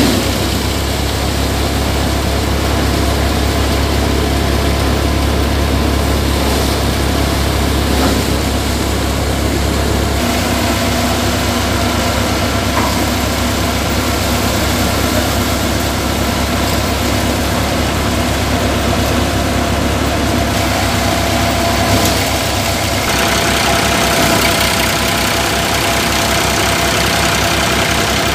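Tractor-driven Dashmesh paddy thresher running: the tractor's diesel engine runs steadily under load while the threshing drum whirs as paddy bundles are fed in. The sound shifts abruptly about a third and about four-fifths of the way through.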